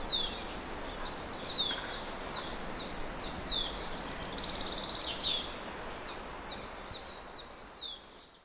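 Birdsong: repeated short phrases of high, quickly falling whistled notes every second or two, over a faint steady outdoor hiss, fading out near the end.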